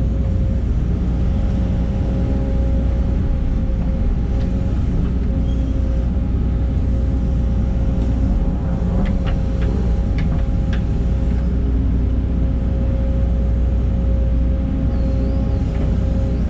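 Case CX210 excavator's diesel engine running steadily under digging load, with a steady whine over its rumble. A few short clicks come about nine to eleven seconds in.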